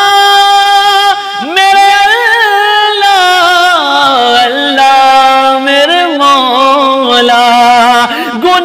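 A man singing an Urdu naat unaccompanied, drawing out long held notes with wavering, ornamented turns between them and a short breath about a second in.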